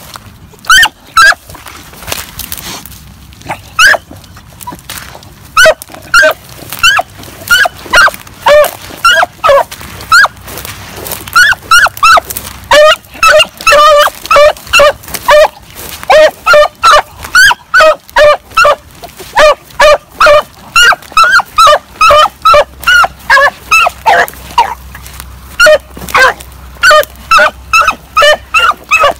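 A rabbit-hunting dog barking over and over while trailing a rabbit. The barks are short and sharp, scattered at first, then a steady run of about two a second from around ten seconds in.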